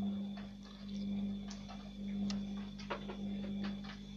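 A steady low hum with a faint high tone over it, and several light clicks and taps scattered through it.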